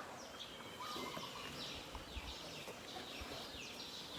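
Birds chirping over faint outdoor background noise: a run of short, high, falling chirps repeating a few times a second.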